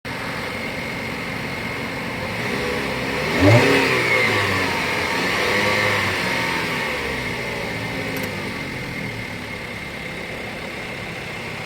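An SUV engine runs and revs up sharply about three and a half seconds in, then slowly winds back down. Under it, an alarm clock sounds a steady high-pitched tone throughout.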